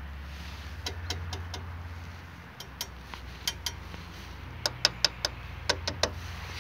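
Fingers clicking and tapping on a perforated metal radiator guard: a few sharp clicks in the first half, then a quick run of them about two-thirds of the way in, over a steady low hum.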